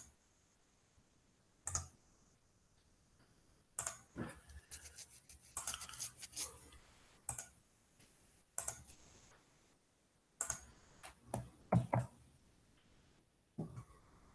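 Irregular clicks and taps of a computer mouse and keyboard, in short clusters with pauses between them.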